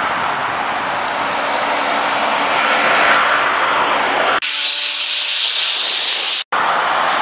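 Steady rushing noise of road traffic heard while riding a bicycle along the roadside path. About four seconds in the sound cuts abruptly to a thinner hiss with the low end gone, then drops out for an instant near the end.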